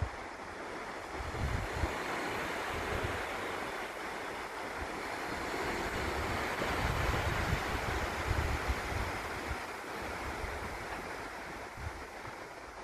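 Small waves washing onto a sandy beach, the wash building to a peak midway and then easing, with wind buffeting the microphone.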